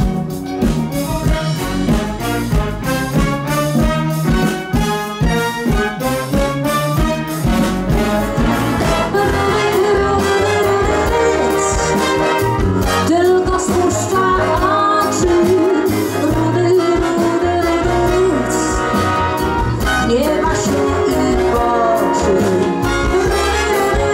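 Live orchestra with brass and saxophone section playing a pop song arrangement, first with a driving drum beat, then settling into held brass chords about nine seconds in.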